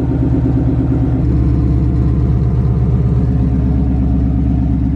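Ford Mustang GT's 5.0 Coyote V8 idling loudly through Kooks long-tube headers and a Corsa X-pipe with Corsa Extreme active exhaust. The high cold-start idle is settling back down, and the note shifts slightly about a second in.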